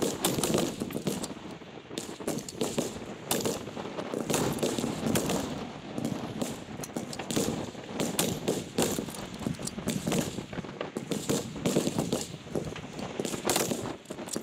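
Rifle fire from several rifles along a firing line during a rapid-fire string: sharp shots in an irregular, overlapping sequence, several a second.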